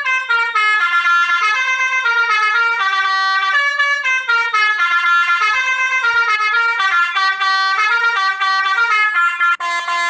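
Basuri 'telolet' multi-tone horn playing a quick jingle, several horn notes sounding together and stepping up and down in pitch, with a brief break near the end.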